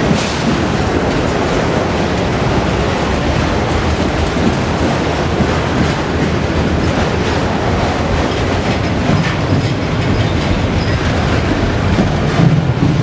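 Norfolk Southern freight train passing close by, its autorack cars giving way to double-stack container well cars. Loud, steady rumble and rattle of steel wheels on the rail, with faint clicks as wheels cross rail joints.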